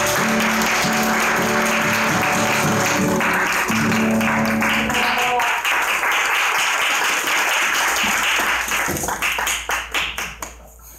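Audience applauding while the last amplified acoustic guitar chord rings on; the chord stops about five seconds in and the applause dies away near the end.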